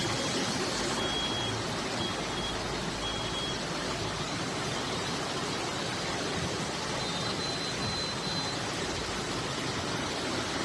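Steady rushing noise of fast-flowing floodwater, with faint short electronic beeps: four about a second apart near the start and a few more later on.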